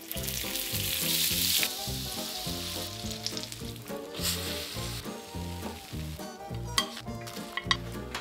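Waffle batter sizzling as it is poured onto the hot plates of an electric heart-shaped waffle iron, loudest in the first second or two, with a second short burst of sizzling about four seconds in as the lid comes down.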